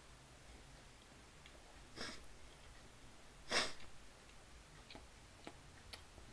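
A man breathing out sharply through his nose twice while chewing, the second breath louder and longer, followed by a few faint clicks near the end.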